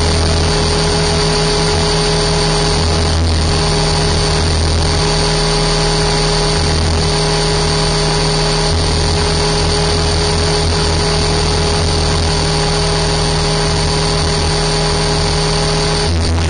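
Align T-Rex 550 electric RC helicopter in flight, heard from a camera mounted on its airframe: a steady motor and gear whine over rotor buzz and wind rush. The whine breaks off near the end as the helicopter comes down to the grass.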